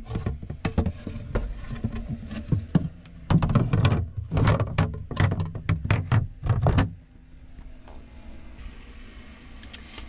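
Tin cans knocking and clattering against each other as they are packed into a boat's bilge locker, and the wooden floorboard being handled back over it: an irregular run of sharp knocks that stops about seven seconds in.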